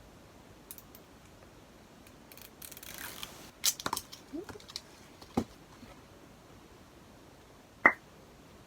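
A lip and cheek crayon being opened and handled: a brief scraping rustle of packaging, then several separate sharp plastic clicks, the loudest near the end.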